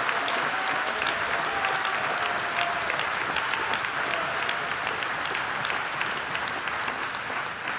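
A large audience applauding steadily, easing off slightly near the end.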